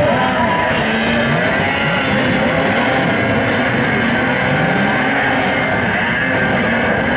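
A pack of two-stroke racing snowmobiles revving hard at once, many engine notes overlapping, their pitches climbing and dropping as the sleds accelerate and pass.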